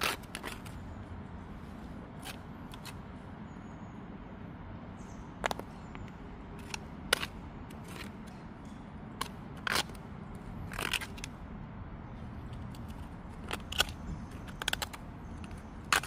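A small hand hoe digging and scraping into dry, lumpy garden soil, in short irregular scrapes and clicks.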